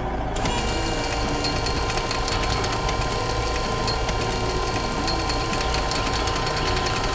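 A machine engine sound effect with a fast, steady rattle. It starts about half a second in and cuts off just at the end.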